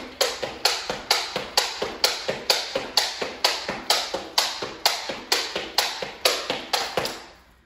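Skipping with a jump rope on a wooden floor: a sharp slap about twice a second as the rope strikes the floor with each jump, stopping about seven seconds in.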